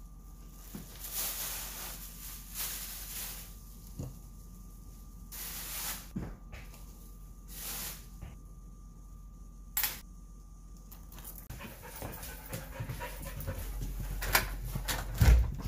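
Dog panting and whimpering, worked up and ready to go out, with bag rustling and handling noises and a few sharper knocks near the end as a door is unlocked.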